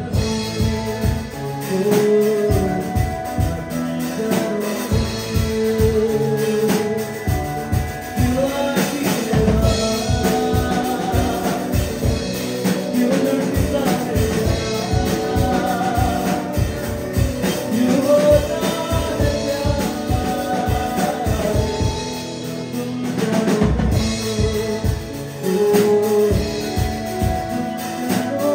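Live band playing a song: a male singer's vocals over electric guitar, keyboard and drum kit, with a steady drum beat.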